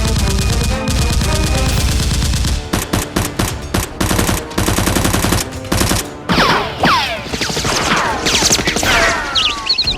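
Rapid automatic gunfire sound effects, a dense run of shots for about six seconds over background music. In the last few seconds this gives way to a series of sharp falling whistles mixed with scattered shots.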